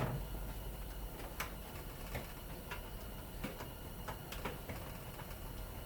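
Scattered light clicks and taps of metal parts being handled and pried apart while a fan motor is stripped of its steel for scrap, over a low steady hum.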